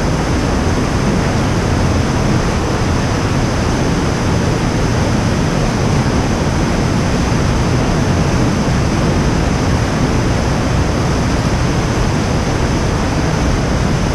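Whitewater of a mountain river rushing down a small cascade close by, a steady loud wash of water with no breaks.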